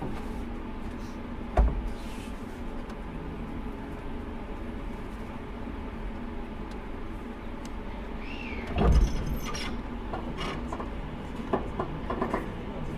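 Inside a JR Hokkaido 789 series 1000 subseries electric train car: a steady low hum, with a sharp thump about one and a half seconds in, a louder thump around nine seconds and a few light clicks near the end.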